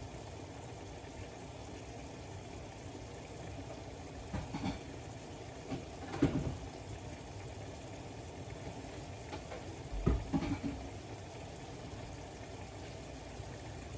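Chicken cubes cooking in a pan, a steady bubbling hiss, with a few brief clatters, the loudest about six and ten seconds in.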